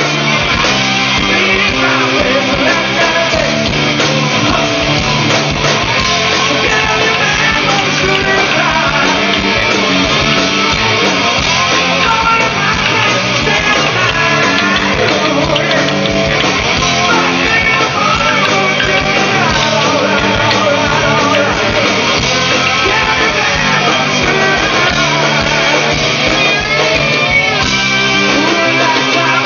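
Live rock band playing, with loud electric guitars, drums and singing.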